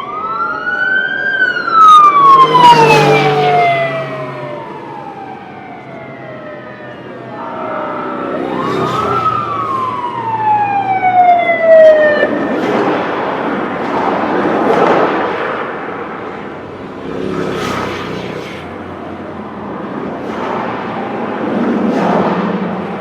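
Police sirens on passing motorcade vehicles: two long wails, each rising then falling, near the start and about nine seconds in. Between and after them comes the rush of vehicles going by, which swells and fades several times.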